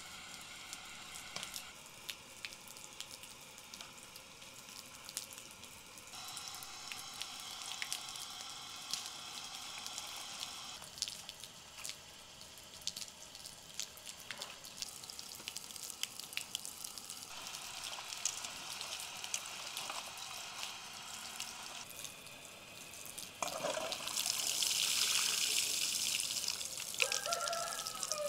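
Water splashing and dripping as hands swish and lift celery leaves and herbs in a plastic basin of water. Near the end a garden tap runs, its stream pouring onto the greens louder than the rest.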